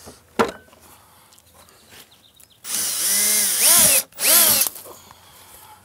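Cordless drill boring a hole through the plastic wall of a pond skimmer: one run of about a second and a half starting near the middle, a brief stop, then a second shorter run, the motor's whine rising and falling as the bit bites. A few handling clicks near the start.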